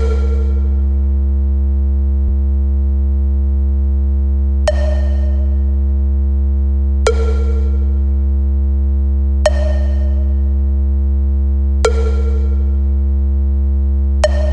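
Background music: a steady low drone with a struck note that rings out and fades, at the start and then about every two and a half seconds from about five seconds in.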